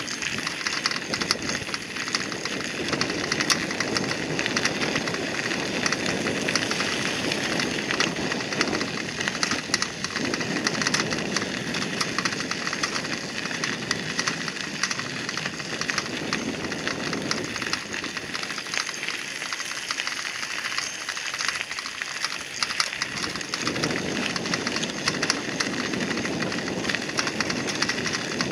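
Bicycle tyres rolling over a gravel path, a steady crunching and crackling with a low rumble that swells and fades every few seconds.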